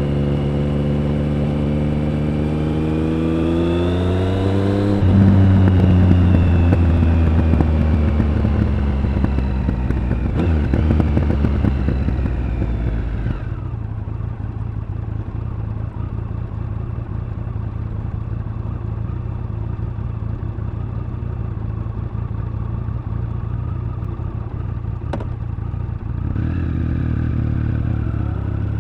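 Triumph Speed Triple 1050's inline three-cylinder engine and exhaust rising in pitch as the bike accelerates, then falling in pitch as it slows. It settles to a steady idle about halfway through, with one sharp click near the end of the idle, and pulls away again shortly before the end.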